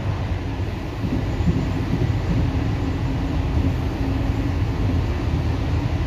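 Steady low rumble of a moving ONCF passenger train, its wheels running on the track, heard from aboard a carriage.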